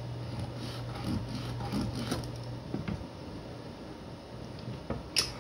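A steel rule and pen being handled on a pine board while its centre is measured and marked: a few light scrapes and taps, and a sharp click near the end. A steady low hum runs under it and stops a little past halfway.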